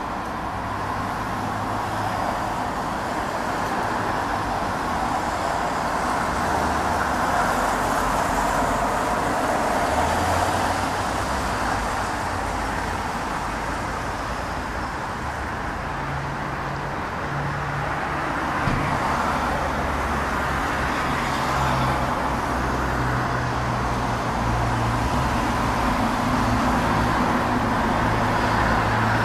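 Steady road-traffic noise: a continuous rush of passing vehicles that swells and eases every few seconds, with a low engine hum coming and going in the second half.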